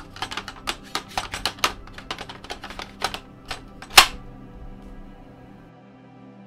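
Metal hi-cap magazine of an M41A Pulse Rifle airsoft replica being worked back into the magazine well, with quick irregular knocks and clicks as it hunts for the guide rail inside. It ends in one loud sharp click about four seconds in. Faint background music runs underneath.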